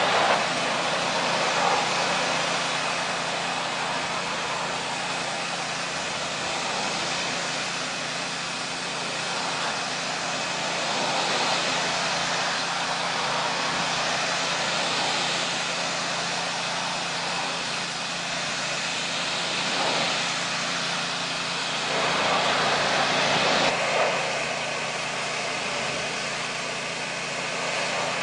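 Pressure washer running steadily, a motor drone under the hiss of the spray, as it blasts the acid-softened old coating off the deck boards.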